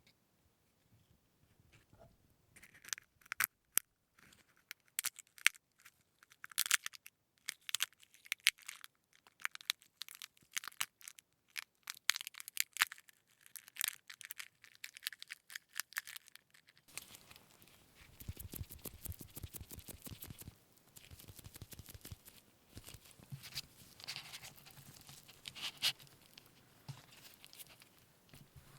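Close-miked crackling and tearing from handling during food preparation: a run of sharp, irregular crackles, then, a bit past halfway, a denser and fuller rustling and crunching.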